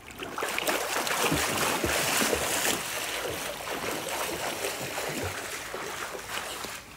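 Pool water splashing and churning as two children kick their legs, swimming on their backs, loudest in the first few seconds.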